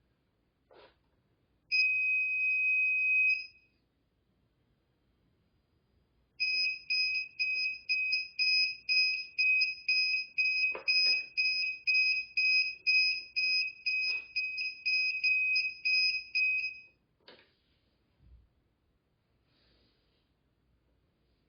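Hoverboard's built-in buzzer beeping: one long beep, then after a few seconds a fast run of short beeps, about three a second for some ten seconds, with a few faint clicks in between.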